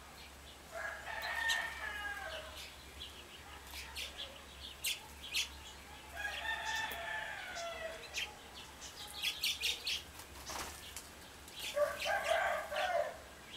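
A rooster crowing three times, each crow lasting about one and a half seconds. Short high chirps of small songbirds come in between the crows.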